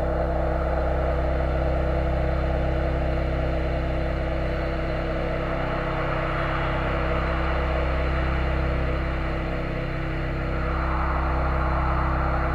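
Dark, sustained low drone from a horror film soundtrack: steady deep tones under a hissing, rumbling wash. It dips briefly near the end, then swells again.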